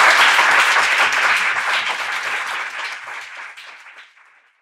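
Audience applause, many hands clapping together, fading away over the last couple of seconds.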